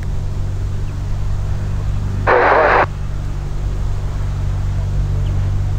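Socata TB-10 Tobago GT light aircraft's piston engine and propeller at taxi power, a steady low drone that grows louder as the plane nears. About two seconds in comes a half-second burst of radio static.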